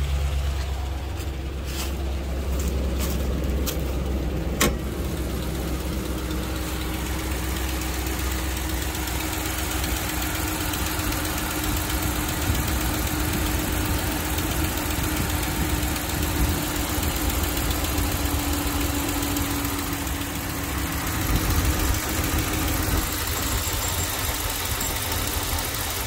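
Ram 1500's Hemi V8 idling soon after a cold start, with the light 'Hemi tick' of the valve lifters still there faintly after an oil-stabilizer treatment. A few sharp clicks come in the first five seconds, and the low rumble eases about ten seconds in.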